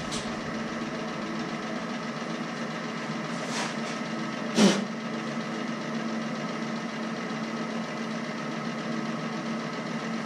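Vintage metal shaper's drive running with a steady mechanical hum. A single sharp knock about four and a half seconds in, with a fainter one just before it.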